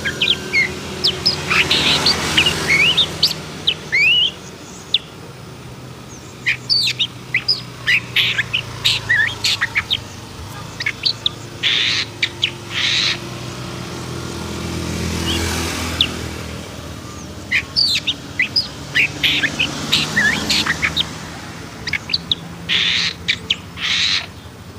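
Long-tailed shrike (pentet) singing fast and excitedly, a varied run of short chirps and quick whistled glides. Harsh rasping calls break in twice around the middle and again near the end. A low steady hum runs underneath.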